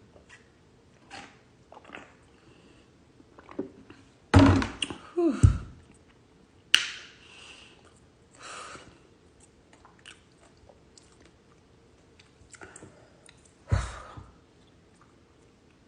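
Close-up mouth sounds of a person chewing a burrito: soft wet smacks and clicks, with a louder cluster about four seconds in.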